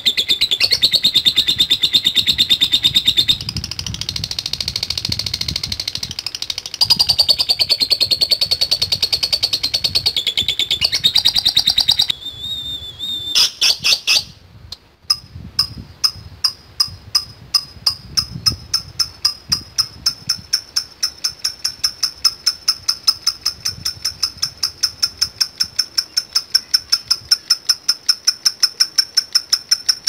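Lovebird calling: a fast, continuous run of high shrill chirps for about twelve seconds. After a short break, a long, even series of quick high ticks follows, about three a second. This is the 'ngetik' ticking song that lovebird keepers train for.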